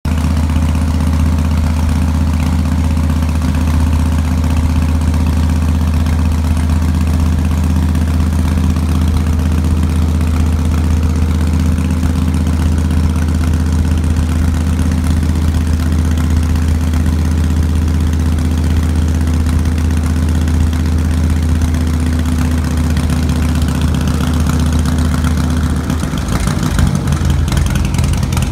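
Harley-Davidson air-cooled V-twin motorcycle engine running steadily, its rear wheel driving a sheep shearer's grinding disc. Near the end the engine note changes and becomes less even.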